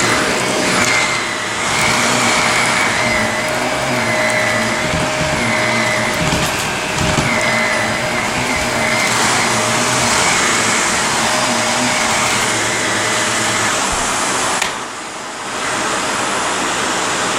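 Shark Rotator upright vacuum cleaner running, a steady motor whine with a slight waver in pitch. About fifteen seconds in it drops in level for about a second, then comes back.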